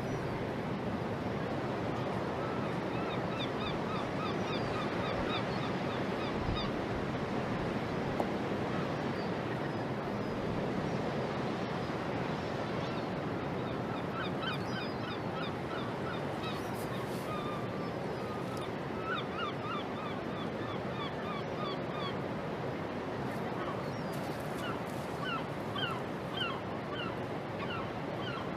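Birds calling in quick series of short, repeated notes, in bouts that come and go, over a steady wash of harbour water noise.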